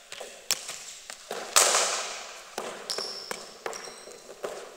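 A cricket ball pitching on the net matting and then struck hard by the bat, a loud crack that echoes and fades slowly in the sports hall. Several lighter knocks and a couple of brief high squeaks follow.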